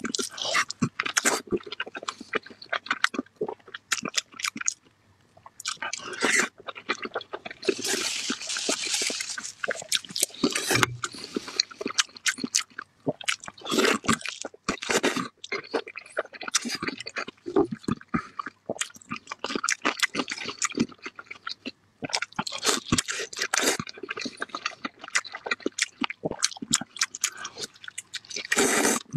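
Close-miked eating of soft, fatty braised pork belly: chewing and lip-smacking in quick, dense clicks, pausing briefly twice.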